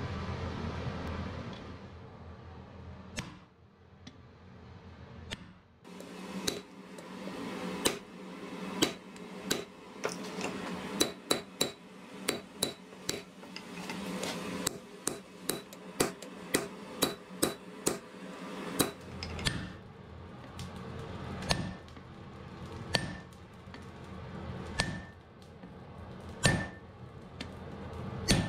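Hammer blows on red-hot iron on an anvil during hand forging. After a couple of seconds of steady noise, quick, even strikes come about two a second, then slower, spaced blows, each with a short metallic ring.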